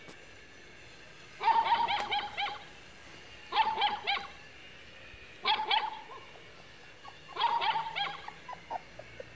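A dog yapping in four short runs of rapid barks, about two seconds apart.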